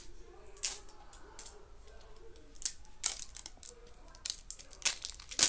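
Plastic wrapping of an L.O.L. Surprise ball being peeled off in strips by hand, giving irregular crinkles and tearing crackles, with the loudest crackles near the end.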